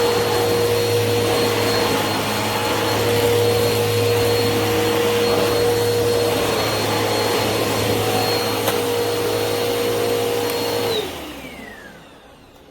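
Eureka PowerSpeed bagless upright vacuum cleaner running steadily on a hardwood floor, with a steady whine over its motor noise. About eleven seconds in it is switched off and the motor spins down in a falling whine.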